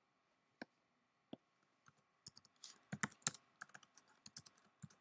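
Typing on a computer keyboard: two lone keystrokes, then a quick run of key clicks from a little under halfway through as a name is typed.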